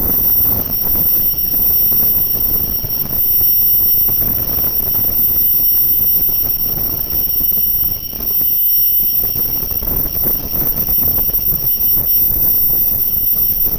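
A small gemstone CNC machine running: a steady high-pitched whine over a rough, uneven rumble.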